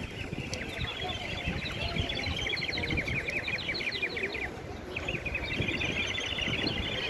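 Birds chirping in fast runs of short, rapidly repeated calls: one long run, a brief break about four and a half seconds in, then another run, over a low background rumble.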